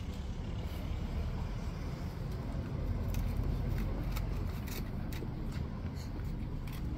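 Steady low outdoor rumble with a few faint sharp clicks in the middle.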